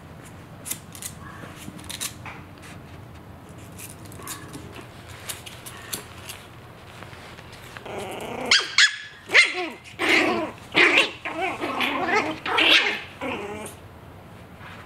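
Maltese puppies yapping and growling at each other over a big rawhide bone, in a run of loud barks and growls starting about halfway through and lasting about five seconds. Before that there are only faint clicks as a puppy gnaws the rawhide.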